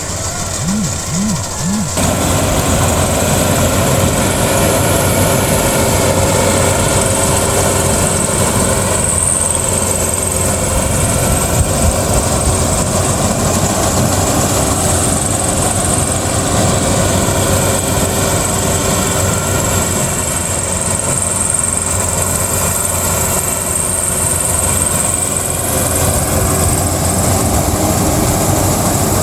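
Rice combine harvester running steadily, a continuous machine drone with a constant high whine, getting louder about two seconds in.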